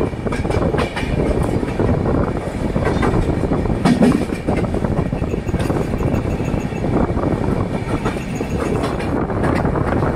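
Express train running on the rails: a steady rumble with scattered clicks as the wheels clatter over rail joints.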